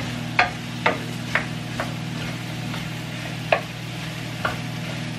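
Shrimp sizzling in a frying pan while a wooden spoon stirs them, knocking sharply against the pan several times, over a steady low hum.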